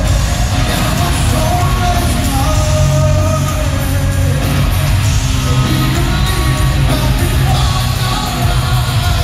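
Live heavy metal band playing loud in an arena, with a singer over guitars and drums, recorded from the crowd so the sound is boomy and echoing.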